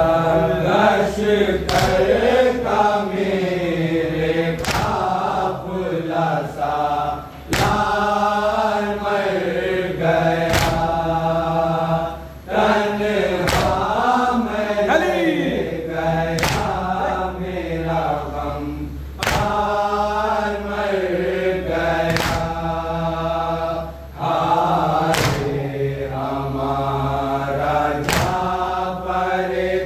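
A group of voices chanting a noha, the Urdu Shia mourning lament for Abbas, in a slow, wailing melody. Sharp beats land roughly every three seconds in time with the chant: matam, the mourners' chest-beating.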